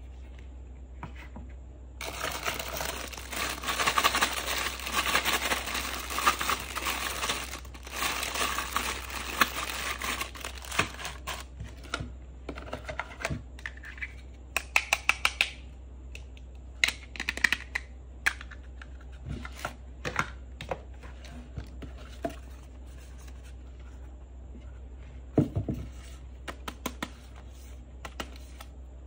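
Packaging crinkling and rustling for several seconds as a plastic toy kitchen set is unpacked, followed by scattered light clicks and taps of plastic toy pieces being handled, a few short rustles and a single louder knock near the end.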